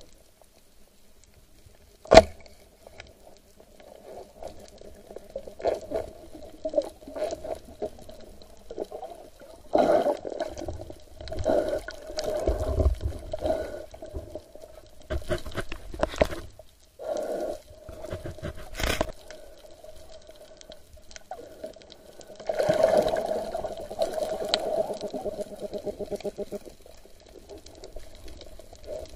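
Underwater sound picked up by a camera beneath the surface: irregular sloshing and bubbling swells over a faint steady hum, with one sharp, loud knock about two seconds in.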